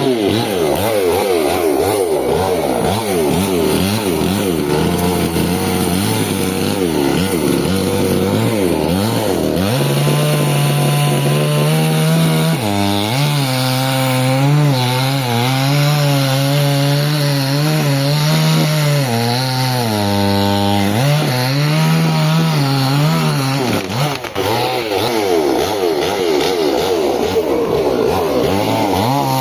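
Petrol chainsaw engine running under load as it cuts through a large log. Its speed swings up and down over and over, with a steadier stretch in the middle.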